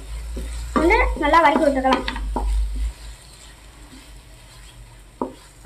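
A wooden spatula stirs and scrapes vegetables frying in oil in a nonstick pan, with a light sizzle. A voice is heard briefly in the first half, and a couple of light knocks of the spatula against the pan come near the end.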